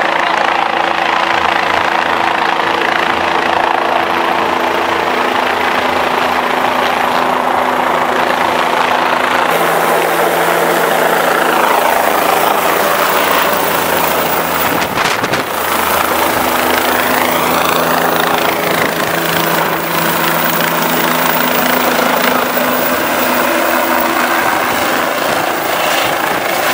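Air-ambulance helicopter flying overhead and coming in low to land, a loud steady rotor and turbine noise. About halfway through its tones shift in pitch as it passes overhead.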